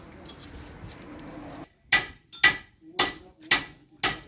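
Hammer blows at a steady pace of about two a second, starting a little under two seconds in, each a sharp strike with a slight ring. Before them there is a low background murmur.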